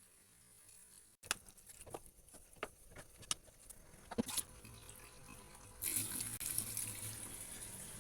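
Cooking pot and utensils: a run of sharp knocks and clinks, then about six seconds in a steady hissing sizzle from the pot.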